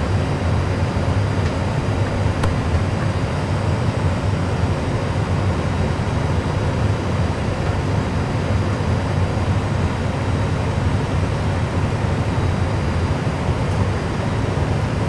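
Airbus A320 full flight simulator's sound system playing a steady low rumble of aircraft and runway noise during the landing rollout.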